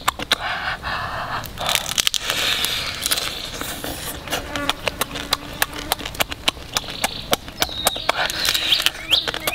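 Close-up mouth sounds of eating a cooked crab: rapid wet lip smacks and clicks, with longer slurping and sucking in the first few seconds as meat is drawn out of the shell.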